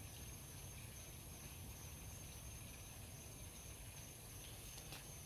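Faint steady high-pitched insect trill with low background rumble, and a single faint click about five seconds in.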